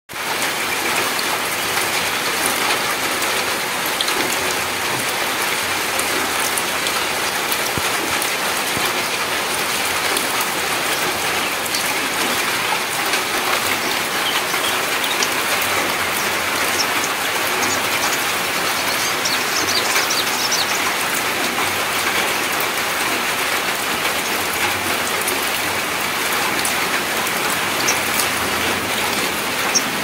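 Light drizzle pattering steadily into a puddle and onto wet ground.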